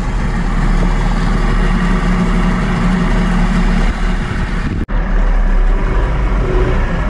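Small outboard motor running steadily, driving a small aluminium boat. The sound breaks off for an instant about five seconds in and then carries on.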